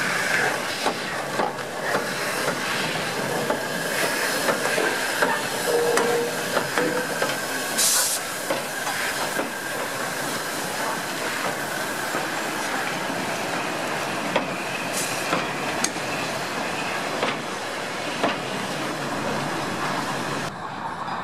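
Peppercorn A1 steam locomotive 60163 Tornado and its coaches rolling past close by, the wheels clicking over the rail joints, with a short burst of steam hiss about eight seconds in.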